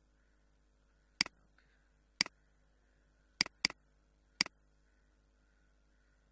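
Five sharp computer clicks, each a quick press-and-release double click, about a second apart, with two close together.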